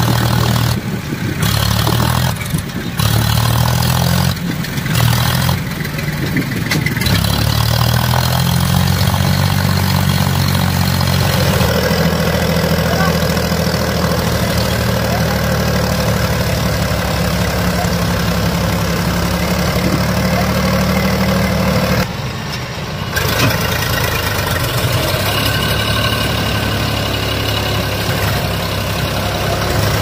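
Powertrac Euro 50 tractor's diesel engine running hard under load as it hauls a loaded trolley through deep sand, its pitch rising about a third of the way through. The sound cuts out briefly several times in the first few seconds and once more later.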